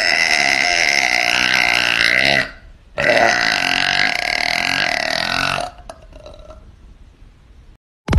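Two long, loud burps from a woman, each lasting more than two seconds with a short pause between them. A brief sharp click follows near the end.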